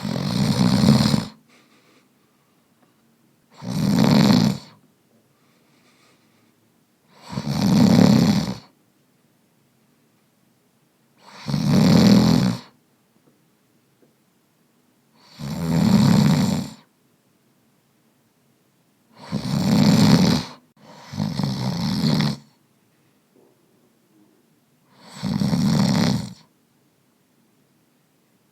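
Slow, regular snoring: one snore about every four seconds, each lasting about a second with near silence between them. About two-thirds of the way through, two snores come close together.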